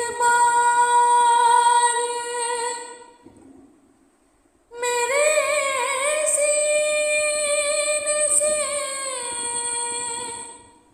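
A woman's voice singing an Urdu noha, a mourning lament, in long held, wavering notes. There are two drawn-out phrases with a pause of about two seconds between them.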